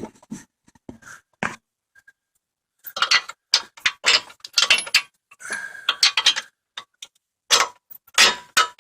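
Metal parts and hand tools clicking and clattering in short bursts of rapid clicks, as the bolts joining the steering knuckle to the strut are lined up and fitted.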